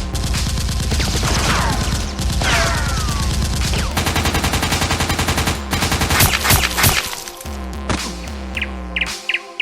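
Rapid bursts of dubbed-in automatic gunfire sound effects, with two falling whines like ricochets early on. The firing stops about seven seconds in, after a few louder single shots.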